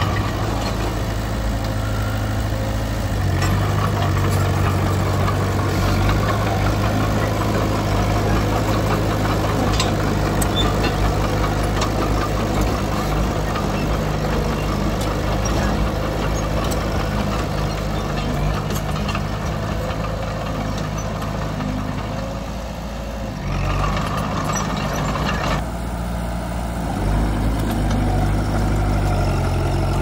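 Komatsu D20P bulldozer's diesel engine running steadily while working, its note dipping briefly about three-quarters of the way through before picking up again.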